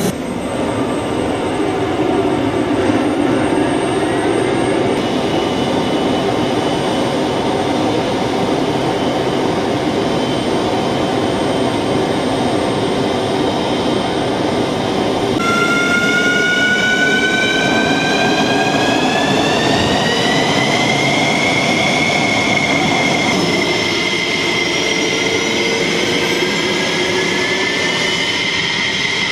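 F-16 jet engine noise: a steady rumbling roar, then after a cut about halfway a turbine whine that rises in pitch for several seconds and levels off, as an F-16's engine spools up on the ground.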